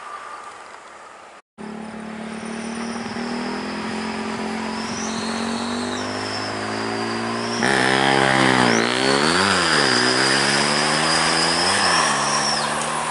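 Mercedes-Benz OH1626 coach's diesel engine running as it drives past, with a high thin whine over it. About seven and a half seconds in it gets louder, and its pitch swings up and down twice as the revs change.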